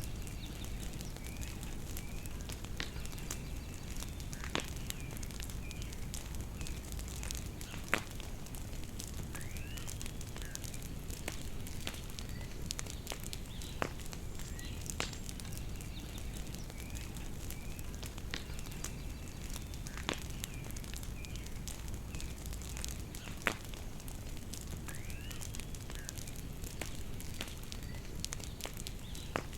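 Bonfire crackling with many small snaps and two louder pops, while birds chirp over it with short calls and a few upward-sweeping notes.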